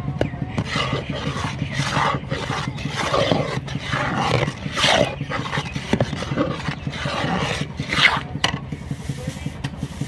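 Long metal spoon stirring semolina batter in a large iron karahi, scraping and sloshing in repeated uneven strokes, with a steady low hum underneath.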